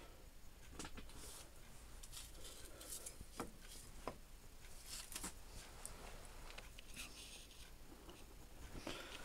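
Faint scattered light clicks and rubbing as a gloved hand handles the metal carriage and apron of a Harrison L5A lathe, with the machine not running.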